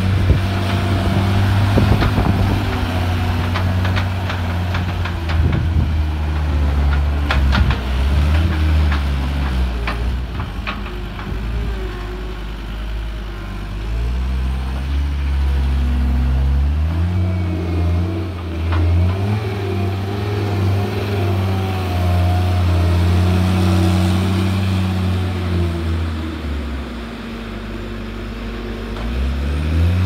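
John Deere skid steer loader's diesel engine running hard, its revs rising and falling as it drives and lifts hay bale bundles. Several sharp knocks fall in the first ten seconds or so. The engine drops to a lower idle shortly before the end, then revs up again.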